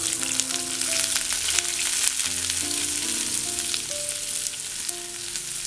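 Sliced onions frying in hot coconut oil in a nonstick kadai, a steady sizzle with fine crackles as they are tossed in and turned with a silicone spatula.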